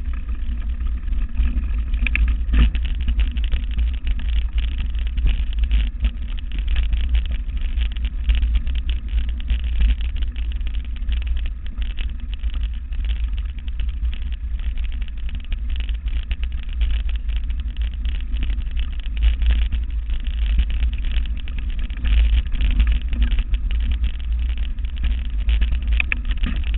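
Heavy wind rumble on the microphone and a mountain bike rattling over a stony dirt track at speed, with many small clicks and knocks from the gravel and the bike's parts.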